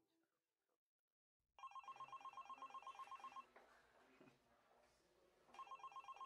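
A telephone ringing with a fast electronic trill: one ring of about two seconds, a pause, then a second ring beginning near the end.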